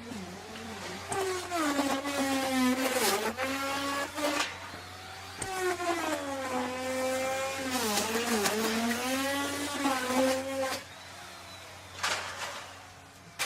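Electric wood router cutting wood, its whine dipping in pitch and recovering again and again as it cuts. Near the end the cutting noise drops away to a quieter run, broken by a couple of short bursts.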